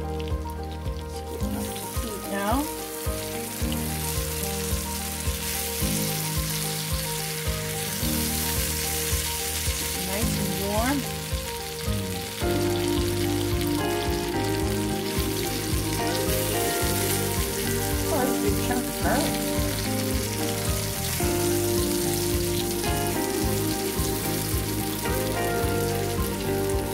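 Mashed Yukon Gold and sweet potato frying in oil in a nonstick skillet, sizzling steadily as it is stirred with a silicone spatula.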